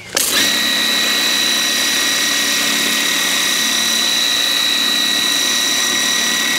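DeWalt DCPW550 cordless 20V power cleaner switched on and running on its low setting. A steady high whine from its motor and pump sits over the hiss of the water jet spraying onto a muddy ATV fender. It starts abruptly just after the beginning.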